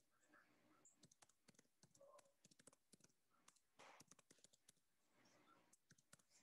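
Near silence: room tone with faint, irregular clicks scattered throughout and a short faint rustle about four seconds in.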